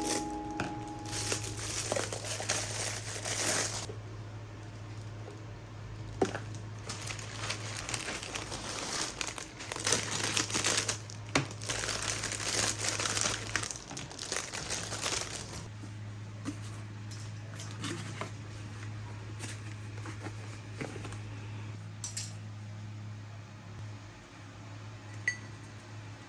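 Packaging being handled: irregular crinkling and rustling with some tearing, heaviest in the first few seconds and again around the middle, over a steady low hum.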